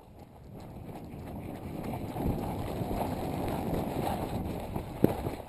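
Rustling and footfalls of someone running through grass and weeds, with wind buffeting the body-worn microphone, growing louder over the first two seconds. Two sharp knocks come near the end.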